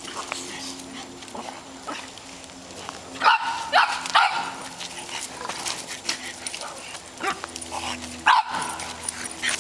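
Small dogs barking while they play: three sharp barks about three to four seconds in and one more near the end.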